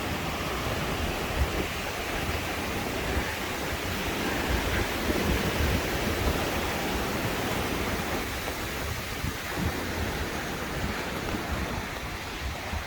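Steady rushing of waterfall water, an even noise with no breaks.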